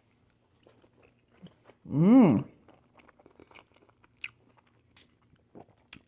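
Close-miked chewing of honey walnut shrimp, with small wet clicks and light crunches. About two seconds in comes a short, loud hummed 'mmm' that rises and falls in pitch.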